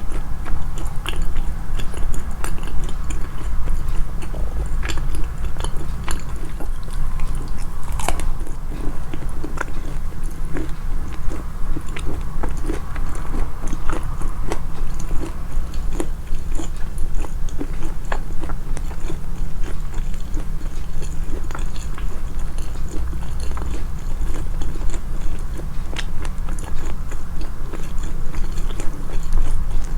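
Close-miked, amplified eating sounds: a person chewing and biting food, with many small mouth clicks over a heavy low rumble, and one louder click about eight seconds in.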